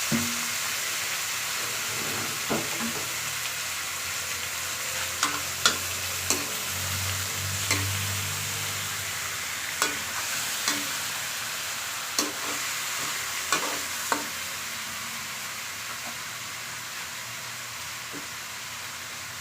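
Food sizzling steadily in a frying pan while being stirred, with a utensil knocking sharply against the pan about a dozen times, mostly in the first three quarters.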